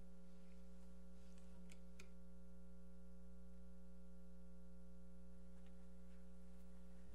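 Steady electrical hum from the meeting room's microphone and sound system, with a few faint clicks about a second and a half in.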